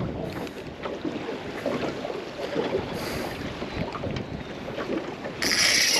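Wind buffeting the microphone over water sloshing around a small fishing boat while a big fish is being played on the line. Near the end a loud, steady hiss starts suddenly.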